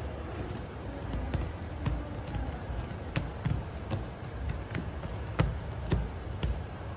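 A kitten's claws scratching at a carpeted scratching wall: a string of irregular sharp scratches and knocks over a steady low background hum.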